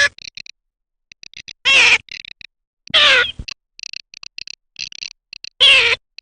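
Garganey calling: four loud nasal calls, each falling in pitch, spaced one to three seconds apart, with a rapid dry clicking rattle between them.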